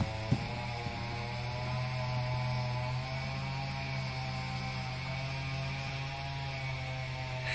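Steady drone of a motor: a low hum with a slightly wavering whine above it, and a single sharp knock shortly after the start.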